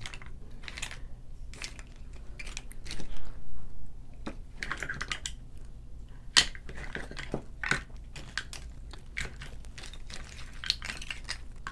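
Close-up eating sounds: chewing, with scattered sharp clicks and crackles of crab and lobster shell being cracked and picked apart by hand. A louder cluster comes about three seconds in and a single sharp snap just past six seconds.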